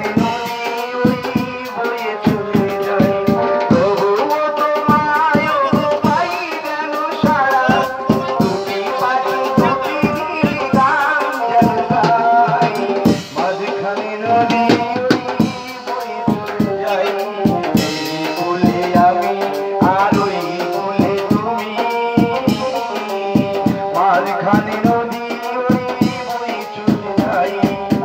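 Music with a busy drum beat under a sustained, wavering melody.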